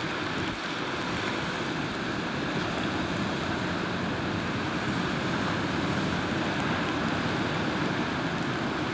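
Steady rushing of wind and sea water, even and unbroken, with no distinct engine note standing out.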